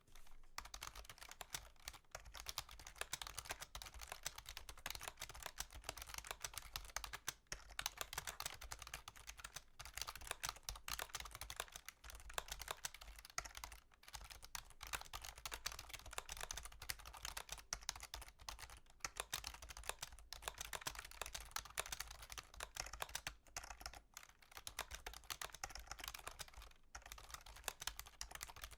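Fast, continuous typing on a computer keyboard: a dense stream of key clicks, broken by a few short pauses.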